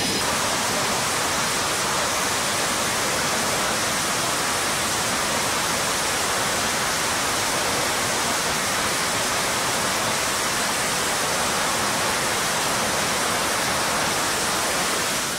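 Twin jet engines of a two-seat Super Hornet fighter at full power on the carrier catapult, just before launch: a steady, dense roar that falls away sharply near the end.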